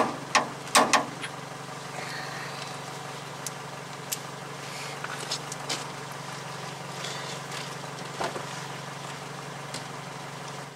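A torque wrench tightening a Tacoma's lower ball joint nut to 118 foot-pounds: about four sharp metallic clicks in the first second, the wrench reaching its set torque, then a few lighter tool clicks, over a steady low hum.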